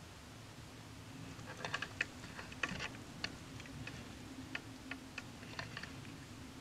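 A string of light, irregular clicks and taps from gear being handled close to the camera, starting about a second and a half in and thinning out near the end, over a low steady hum.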